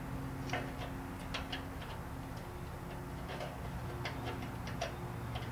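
Irregular small metallic clicks and clinks of a wrench and screwdriver working a valve adjusting screw and locknut on a VW Beetle's rocker arm, with a steady low hum underneath.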